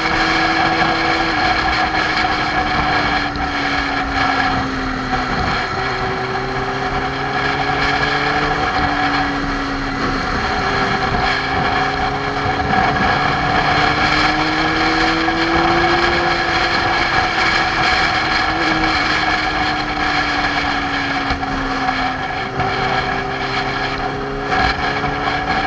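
Motorcycle engine running while riding along, its note rising and falling slowly with the throttle, heard from a camera mounted on the bike over a steady rush of wind and road noise.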